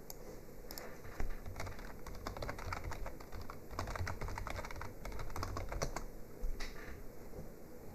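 Typing on a computer keyboard: a run of quick, irregular key clicks that stops about a second before the end.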